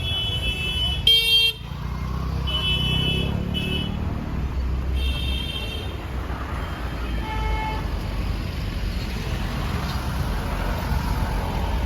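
Vehicle horns honking in short toots over steady road traffic noise, with one loud, close horn blast about a second in.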